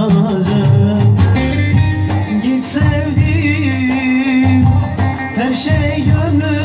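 A man sings a Turkish folk song in a bending, ornamented melody, accompanying himself on a bağlama (long-necked saz) plucked under the voice.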